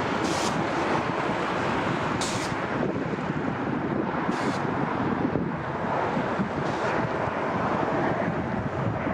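Steady rushing noise of jet airliner engines, with wind buffeting the microphone in short gusts every couple of seconds.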